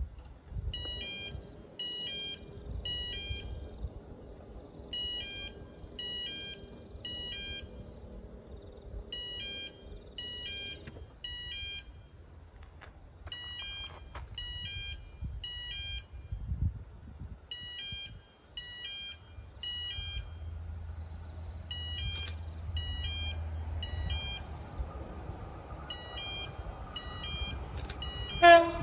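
Short high-pitched beeps in groups of three or four, repeating every few seconds. A low rumble swells about two-thirds of the way through. Near the end comes a brief loud blast of a train horn as a train comes into view.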